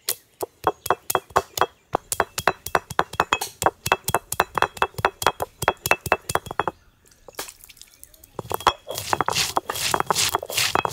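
Dried turmeric roots pounded with a granite stone on a stone grinding slab: rapid sharp knocks of stone on stone, about five a second, with a brief pause about seven seconds in before the pounding resumes faster.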